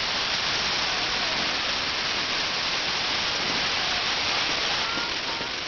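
Steady hiss of fireworks burning, sparks spraying continuously, with a few faint short whistles.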